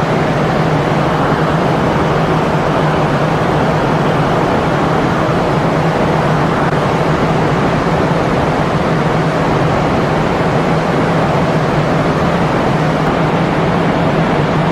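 Steady, loud machinery noise with a constant low hum, unchanging throughout.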